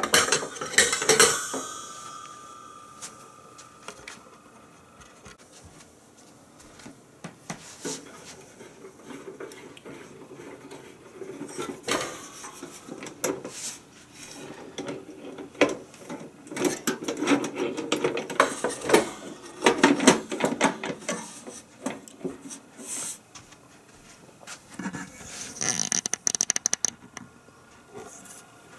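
Metal parts of an electric tabletop grill being handled: the wire rack clattering and knocking as it is set into the grill pan, one knock about a second in leaving a brief ringing tone. A run of quick clicks comes near the end as the lid is closed and latched.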